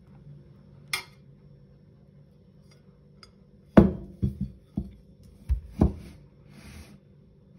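Ceramic plates knocking against each other and on a wooden tabletop while a cake is turned over between them. A single loud knock comes about four seconds in, followed by several lighter knocks over the next two seconds, after a brief scrape near the start.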